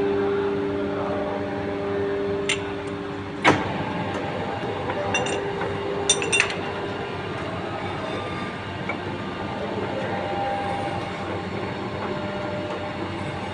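Machine-shop machinery running with a steady hum, and several sharp metal clinks and clanks, the loudest about three and a half seconds in.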